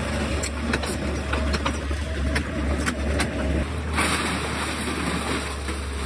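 XCMG excavator's diesel engine running with a steady low drone, with several sharp metallic clicks in the first three seconds. About four seconds in, a brighter hiss joins the drone.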